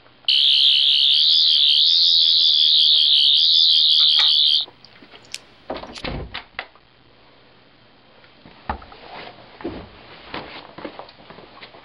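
Sonic screwdriver prop giving out a loud, high warbling electronic whine for about four seconds, then cutting off. Several sharp clicks and knocks follow, with fainter knocks near the end.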